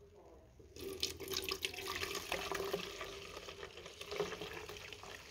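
Milky sulfur-and-water mixture poured through a funnel into a plastic bottle, starting about a second in: a steady splashing fill with many small crackles as the liquid lands and froths.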